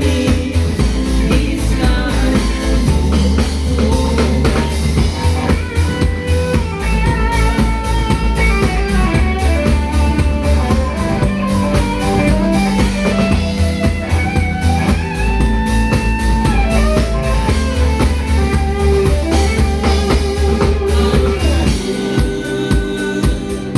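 A live band playing a song: drum kit, bass and guitar with a melody line held over them. The low bass drops out about two seconds before the end.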